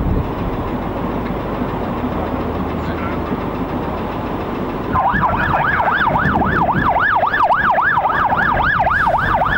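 Ambulance siren in a fast up-and-down wail, about three sweeps a second, starting about halfway through. Before it there is a steady rumbling noise.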